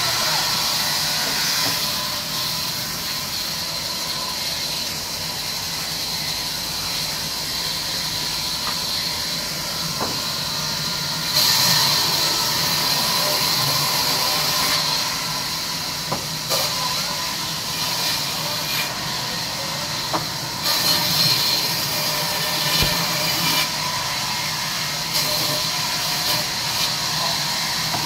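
Large sawmill band saw running and cutting through timber: a steady hiss that grows louder for a few seconds about eleven seconds in and again about twenty-one seconds in as the blade bites into the wood, with a few short knocks.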